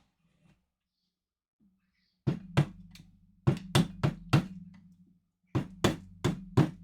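Ten sharp knocks in three quick groups: two, then four, then four. It sounds like something hard being tapped or struck against a surface.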